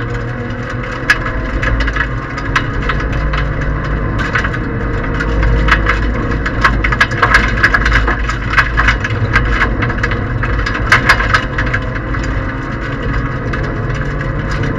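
Inside a Toyota Aygo 1.0 rally car on a gravel stage: the three-cylinder engine runs steadily under a constant clatter of gravel and stones striking and rattling against the car's underside. The hits come thickest about halfway through and again near eleven seconds in.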